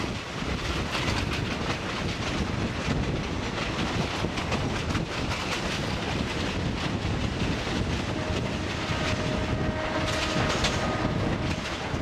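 Night passenger train running on the track, its wheels clattering over the rail joints. A faint steady whine joins in for a few seconds in the second half.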